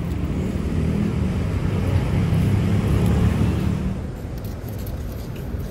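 Road traffic: a passing vehicle's rumble and tyre noise swell to a peak about three seconds in, then fade back to a steady traffic hum.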